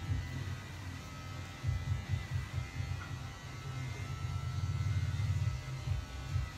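A small electric motor buzzing low and unsteadily, the kind of hum a salon's hair clippers or trimmer give off.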